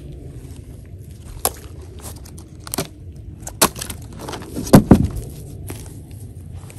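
Knocks and thuds of weathered wood being handled as a rotten bench stump end is tipped over: a few sharp knocks scattered through, the loudest a close pair about five seconds in, over a steady low rumble.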